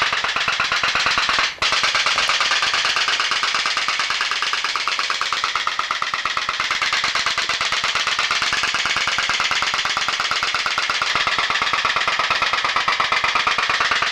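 Souped-up seven-tube diaphragm putt-putt (pop-pop) steam engine driving a model boat, running with a really loud, rapid, even putt-putt of pulses, with a brief break about a second and a half in.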